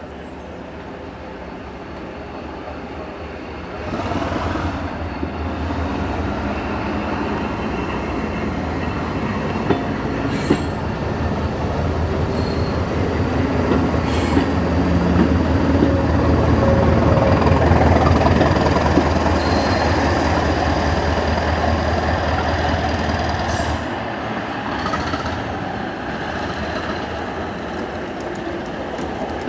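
Diesel train running along the track: its low engine hum starts about four seconds in, grows to its loudest a little past halfway, then falls away, with a few sharp clicks along the way.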